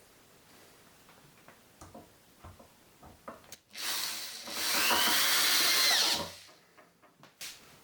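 A handheld power tool runs in one short burst of about two and a half seconds, its motor whine rising as it spins up and falling as it stops. A few small handling clicks come before and after it.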